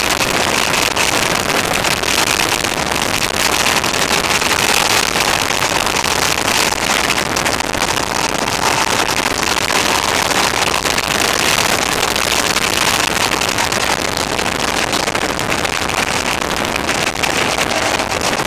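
Motorcycle running along a winding road, its engine under a steady rush of wind on the camera microphone. The sound is harsh and distorted because the camera's recording level was set a little too high.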